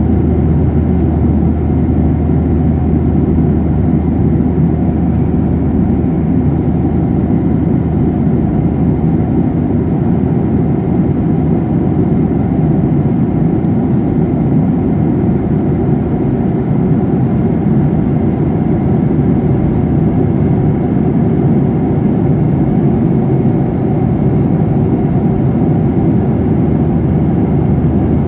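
Steady in-flight cabin noise of a jet airliner: engines and rushing air heard through the fuselage from a window seat, an even low rush with a low hum underneath.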